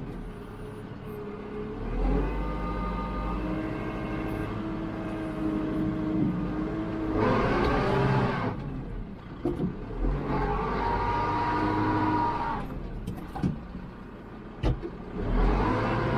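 Kubota MX5400 tractor's diesel engine working in deep mud, the revs rising and falling several times under load, with a few sharp knocks near the end.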